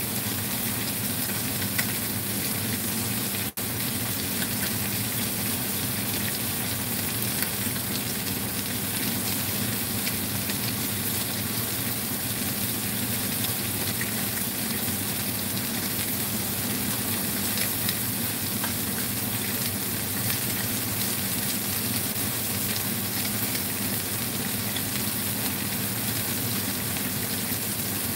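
Mayao fish pieces frying in a little cooking oil in a nonstick wok: a steady sizzle with small crackling pops.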